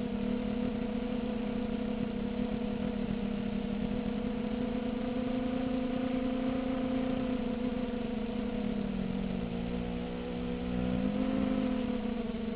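Small FPV quadcopter's brushless motors and 5-inch propellers buzzing steadily in flight; about three-quarters of the way through the pitch sags and then climbs back as the throttle eases off and is brought up again.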